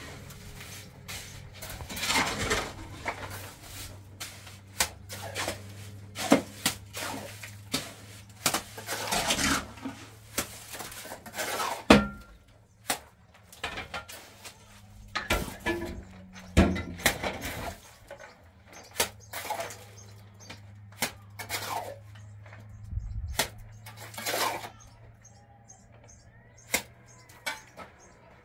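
Steel trowel scraping and clinking while cement mortar is spread: irregular rasping scrapes mixed with many sharp metallic taps.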